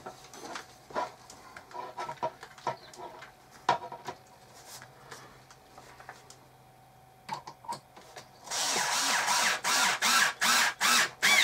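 Cordless screwdriver driving a screw into the wooden plate rack in a run of short bursts, starting about three quarters of the way in. Before that there are light clicks and taps of screws and wooden parts being handled.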